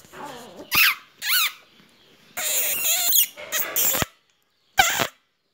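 Young infant cooing and squeaking. There are short high-pitched sounds that glide up and down about a second in, then a longer, noisier vocal sound around the middle and a brief one near the end.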